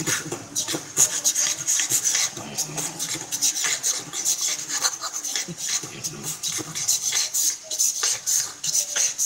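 Beatboxing heard through a voice-chat microphone: a quick, dense run of sharp hissing and clicking mouth sounds.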